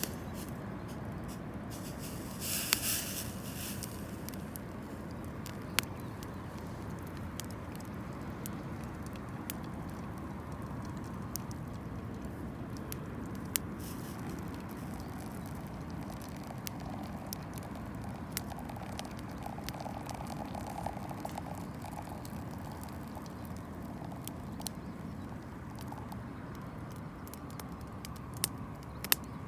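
Wood campfire crackling: scattered sharp pops and snaps over a steady low rush, with a short burst of hiss about three seconds in.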